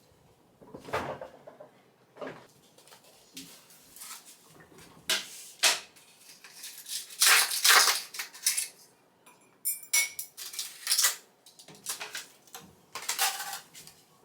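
Dishes and cutlery clinking and clattering: a string of separate knocks and clinks, loudest a little past halfway.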